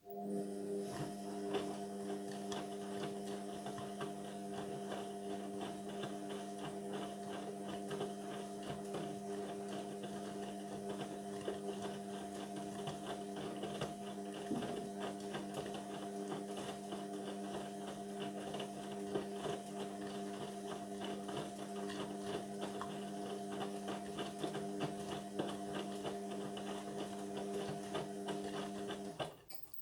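Indesit washing machine running with a steady electric hum and a fast rattle of small clicks, switching on abruptly and cutting off suddenly after about half a minute.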